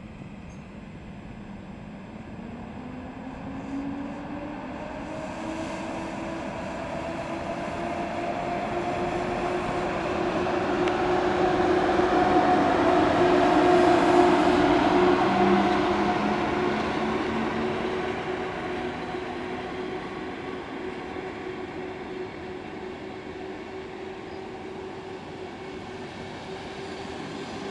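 PKP EP07 electric locomotive accelerating away with a passenger train, its traction motors giving a whine that slowly rises in pitch. It is loudest as the locomotive passes about halfway through, then fades to the rolling of the coaches.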